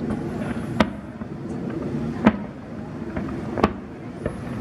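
Fireworks going off in a display: three sharp bangs about a second and a half apart, with a couple of smaller pops between them, over a steady background rumble.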